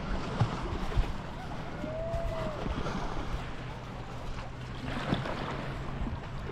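Water lapping against a kayak's hull, with wind buffeting the microphone. Two sharp knocks come in the first second, and a short high note rises and falls about two seconds in.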